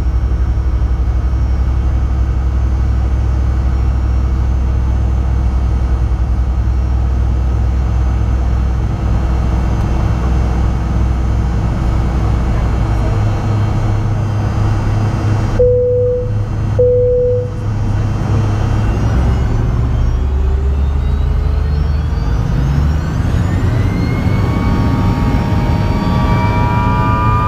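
Fokker 100's Rolls-Royce Tay turbofan engines heard from the cabin, running at low power with a steady hum. Two short beeps sound a little past the middle. About twenty seconds in, the engines spool up with a steadily rising whine as takeoff thrust is set.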